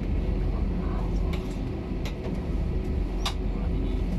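Steady low rumble inside a jet airliner's cabin as the plane rolls along the ground, with a faint steady hum and a few sharp clicks.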